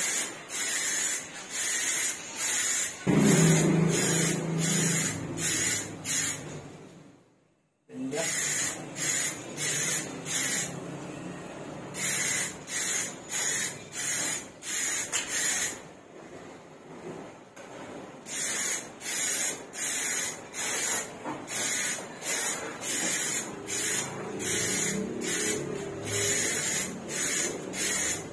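Aerosol spray can of clear coat hissing in short, quick bursts at about two a second, as the top coat goes onto a helmet. A low rumble sounds under the spray about three seconds in, and the sound cuts out briefly about seven seconds in.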